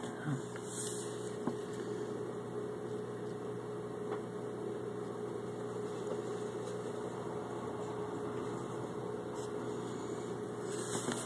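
Small aquarium filter motor humming steadily, with a few faint taps near the start.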